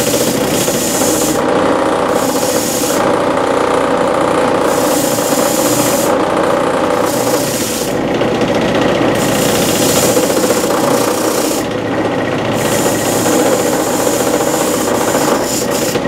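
Bolts being cleaned off with a steady rough scraping and rubbing, sharper in spells that come and go every second or two.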